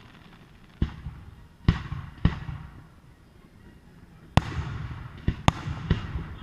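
Fireworks display: aerial shells bursting in loud bangs, each trailing off in a rolling echo. Three bangs come in the first two and a half seconds, then a tighter cluster of four from about four and a half seconds in.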